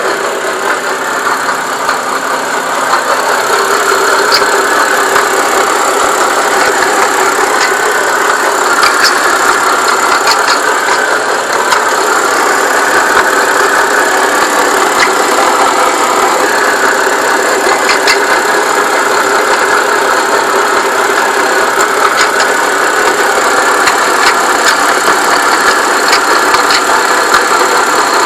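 2008 BMW 328i's N52 straight-six engine idling, with a metallic rubbing noise from the engine bay that the owner suspects is a dying power steering pump running low on fluid. The sound is steady and grows a little louder about four seconds in.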